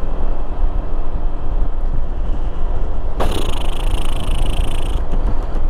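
A 2015 Honda PCX150 scooter under way, its single-cylinder engine running steadily under a heavy low rumble of wind and road noise. About three seconds in, a harsh hiss comes in abruptly and cuts off again about two seconds later.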